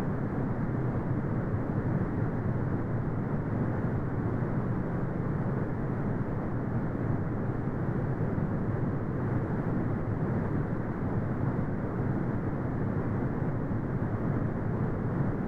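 Continuous synthetic brown noise: a steady, deep rumbling hiss with most of its energy in the low end and nothing above the upper midrange, unchanging throughout.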